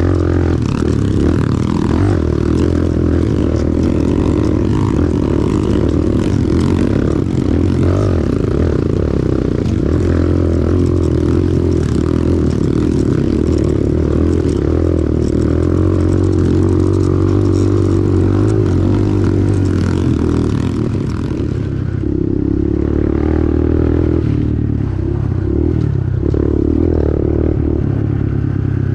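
Pit bike engine running steadily under way, with wind rushing over the microphone. The wind hiss drops away about two-thirds of the way through while the engine keeps running.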